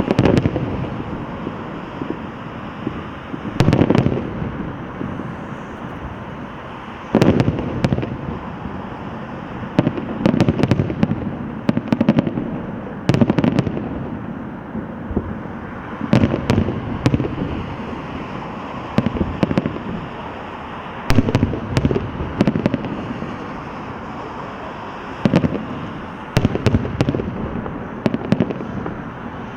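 Aerial fireworks shells bursting overhead in a steady succession, sharp bangs every second or two, each followed by a low rolling echo, with crackling between the bursts.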